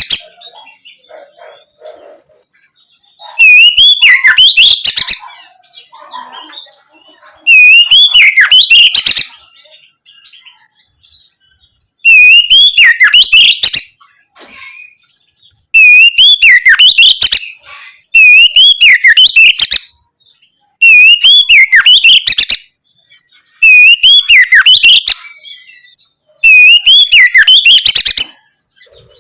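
Oriental magpie-robin (kacer) singing loud, repeated song phrases, eight in all, each about a second and a half of swooping whistles that end in a fast run of sharp notes, with short quieter gaps between.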